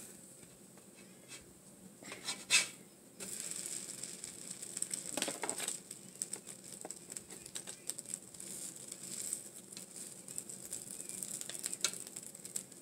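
Small pancake sizzling softly on a hot flat-top griddle, a steady crackling hiss that starts about three seconds in, after a few sharp clicks of a plastic spatula.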